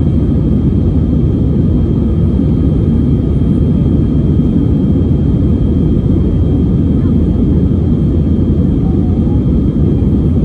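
Steady airliner cabin noise in flight: the dense, even rumble of engines and airflow heard from a window seat of an Airbus A320-family jet, with a faint steady high whine above it.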